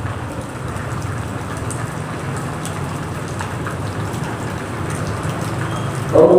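Steady, even hiss of background noise with a few faint ticks, in a pause between phrases of a long sung call over loudspeakers. A man's amplified voice starts again on a held note just before the end.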